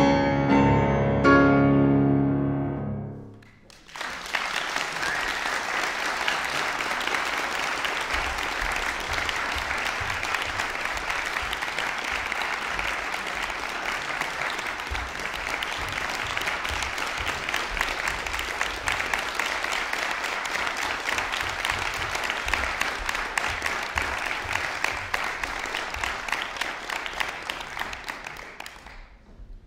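Closing chords of a solo piano piece on a concert grand, ringing and dying away about three seconds in. The hall's audience then breaks into sustained applause that lasts some 25 seconds and fades out near the end.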